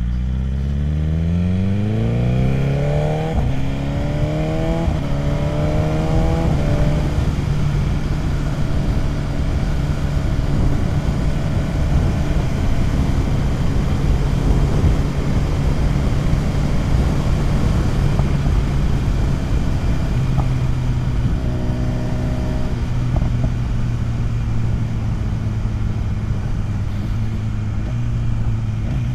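BMW S1000RR inline-four accelerating hard through upshifts: the engine note climbs, drops back at each shift and climbs again three times in the first seven seconds. It then settles to a steady cruise under a loud rush of wind noise.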